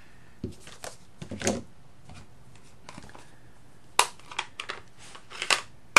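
Scattered light taps and clicks from card-making supplies being handled on a craft mat: cardstock set down, with ink pad and tools moved. The clicks come more often and sharper from about four seconds in.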